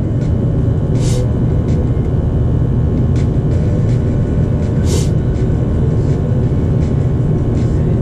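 Luxaire natural-gas furnace firing on low fire, a steady low rumble, with two brief hisses about a second and five seconds in.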